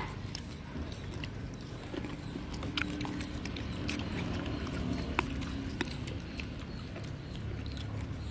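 People biting and chewing fruit: scattered small crunchy clicks and smacks over a low background hum.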